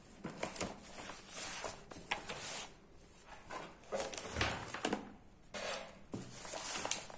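Notebook paper and a plastic-covered textbook being handled and shifted on a wooden table: irregular rustling swishes with light knocks and clicks.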